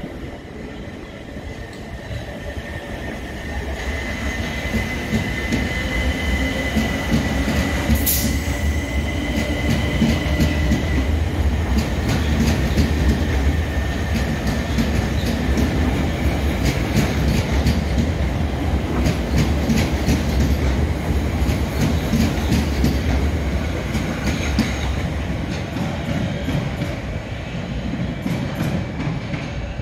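Southern Class 377 Electrostar electric multiple unit rolling slowly along the platform, its rumble swelling and then fading. A high steady squeal runs from about four to eleven seconds in, with a sharp clack near eight seconds and wheels clicking over rail joints after that.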